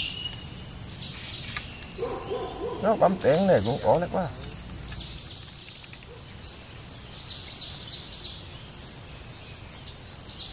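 Steady forest insect chirring with short high bird calls. A louder run of low, wavering calls comes about two to four seconds in.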